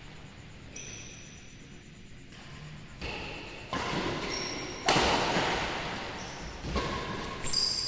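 Badminton rally: racket strikes on a shuttlecock, about five sharp hits growing more frequent in the second half, each echoing, with short high squeaks of shoes on the court floor.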